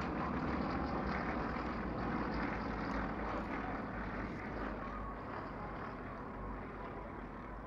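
Engines of Yak aerobatic planes droning overhead as the formation loops through its smoke trails, slowly fading toward the end.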